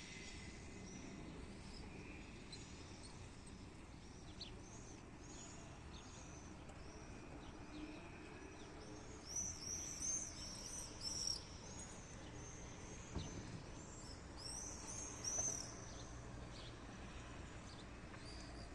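Swallows twittering: scattered high chirps, with a run of rapid twittering calls about halfway through and a shorter one a few seconds later.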